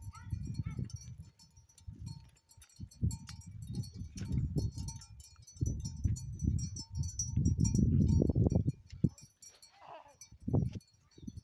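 A goat herd on the move: one goat bleats about ten seconds in, over a faint high tinkling of small herd bells. Gusts of wind on the microphone make the loudest, low rumbling sound.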